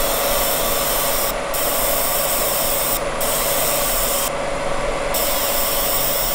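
Laser engraving machine marking a silver ring held on its rotary chuck: a steady hiss over a steady hum tone. The hiss thins out briefly about every second and a half, once for nearly a second, between engraving passes.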